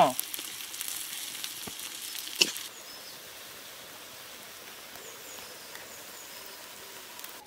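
Onions sizzling in hot oil in a pan, with two sharp knocks about a second apart. The sizzle cuts off abruptly about three seconds in, leaving only a faint background.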